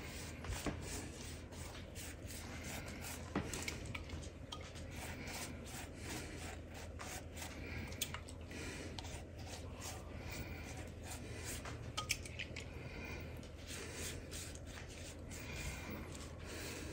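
Silicone pastry brush stroking egg wash over a raw puff-pastry pie crust: soft, repeated rubbing strokes, with a few sharp clicks along the way.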